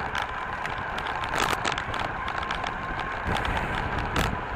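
Mountain bike rolling fast on asphalt: steady tyre and wind noise with a low rumble on the camera's microphone, and scattered clicks and rattles from the bike.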